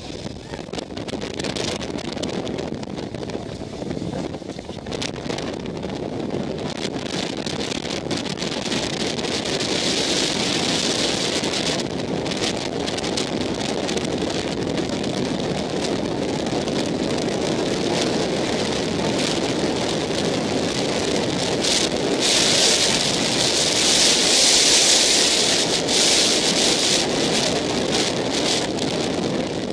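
Wind rushing over the microphone of a camera held in an open Test Track ride vehicle running at speed, with the car's running noise beneath. It gusts louder about ten seconds in and again from about twenty-two to twenty-seven seconds.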